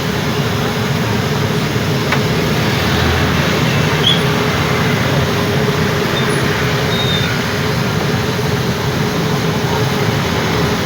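Steady rumbling street and vehicle noise with a constant low hum, unchanging throughout.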